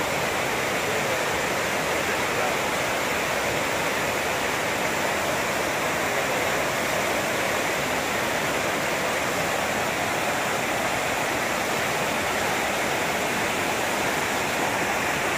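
Whitewater rapids of the Chilliwack River rushing steadily over and around boulders.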